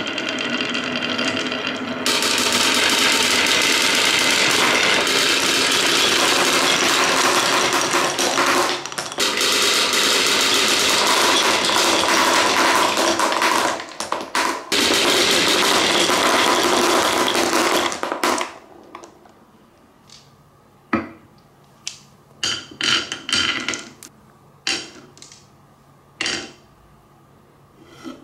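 Dozens of small plastic balls rolling and clattering down wooden marble-run tracks and through the wooden Cuboro blocks, a loud continuous rattle. About 18 seconds in it thins out to a scatter of separate clicks and clacks as the last balls drop out into the tray.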